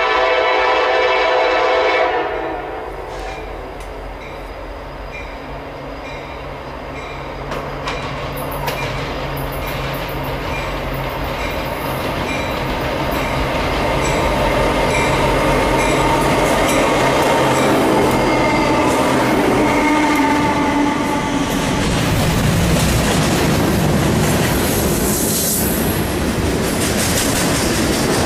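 Diesel freight train: the locomotive horn sounds one blast for about two seconds as the train approaches. The locomotives then run past with a deep engine drone that grows louder, followed by the freight cars rolling by with wheel clatter and rumble.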